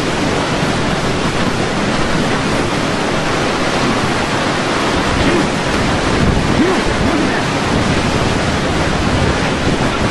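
Hurricane-force wind blowing hard and buffeting the microphone, a loud, steady rushing noise with no break.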